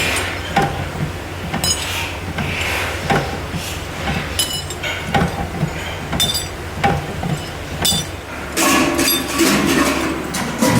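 Metal struck repeatedly with a hammer: sharp ringing blows, irregularly about once a second, over a steady low machinery hum.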